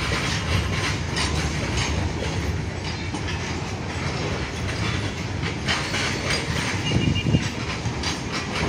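Goods train wagons rolling slowly past, with a steady low rumble and irregular clacks as the wheels cross the rail joints. A short high tone comes about seven seconds in.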